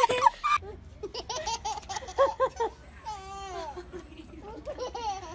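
A toddler laughing in short, repeated bursts of giggles, breaking into a high, falling squeal of laughter about three seconds in.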